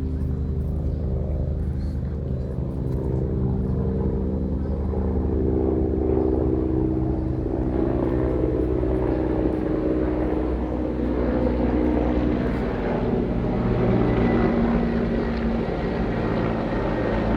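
Bell 412EP helicopter passing overhead: the steady beat of its four-blade main rotor and the hum of its turbines, growing a little louder midway as it comes nearer.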